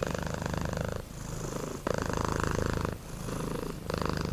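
A domestic cat purring close up, in a steady rhythm that swells and eases about once a second as it breathes in and out.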